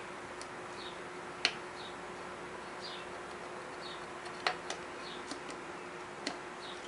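Scattered light clicks as a Wiseco piston held in a band-type ring compressor is shifted and settled over the engine's cylinder bore, over a steady faint hum.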